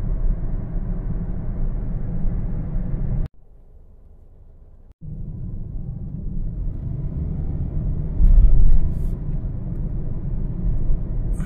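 Steady low rumble of a moving vehicle. It drops to a much quieter stretch of about a second and a half a little over three seconds in, then returns, swelling briefly louder later on.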